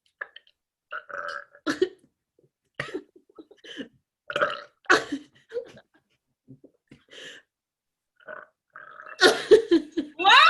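A woman forcing out a rapid string of short burps with brief pauses between them, as many as she can in a timed burst. The loudest come near the end.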